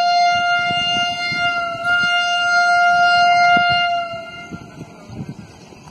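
WAG-9 electric locomotive's air horn sounding one long, steady single-pitched blast that cuts off about four seconds in, a warning to the gangmen working on the track to clear the line.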